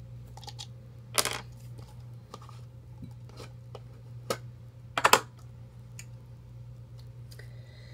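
Scattered sharp clicks and clinks of a small hard-plastic toy snow globe being handled and turned in the hands, with one louder click about a second in and a quick pair around five seconds in.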